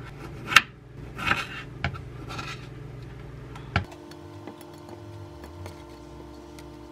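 Kitchen knife slicing through small cherry tomatoes and knocking on a wooden cutting board: a sharp knock about half a second in, then a few softer slicing sounds. About four seconds in it goes quieter, leaving a faint steady hum and soft ticks.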